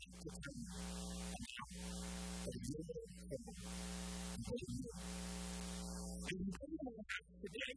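Soft, sustained background music held under a steady electrical hum and hiss.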